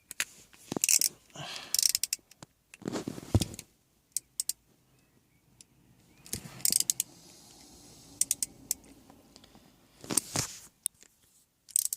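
Metal sockets and a ratchet clinking and rattling in hand while working on screws, in irregular clicks and short clatters.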